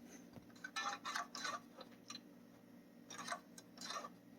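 Faint scattered clicks and light taps, a cluster about a second in and another after three seconds, over a faint steady hum.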